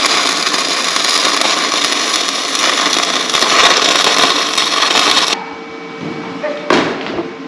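Stick (arc) welding: the electrode arc crackles and sizzles steadily while a tack weld is laid on a steel plate, then cuts off suddenly about five seconds in.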